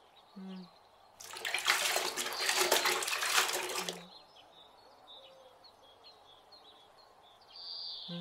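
Water poured from a steel ladle, splashing for about three seconds. After that, birds chirp faintly.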